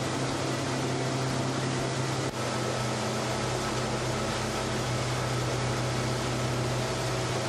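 Boat engine running at a steady cruising drone, with the rush of water and wind from the boat under way. There is a brief dip about two seconds in.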